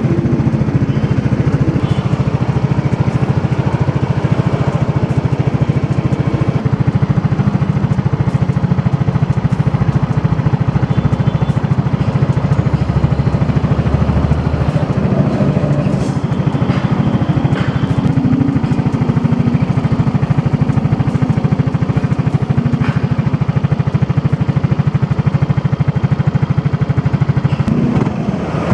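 Yamaha Aerox scooter's single-cylinder engine idling steadily through an aftermarket Navin racing exhaust, with a deep, even exhaust pulse.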